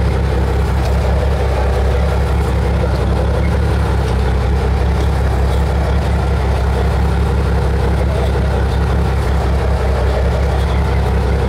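Fishing boat's engine running steadily with a low, even drone.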